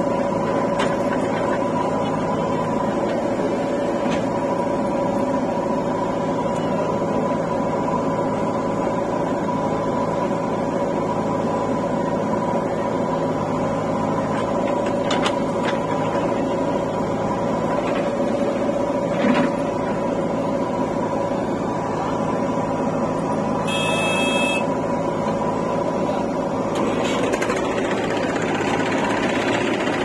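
Diesel engines of a JCB 3DX backhoe loader and a John Deere tractor running steadily while the backhoe loads soil into the trailer, with a steady mechanical whine over the engine drone. A brief high beep comes about two-thirds of the way through.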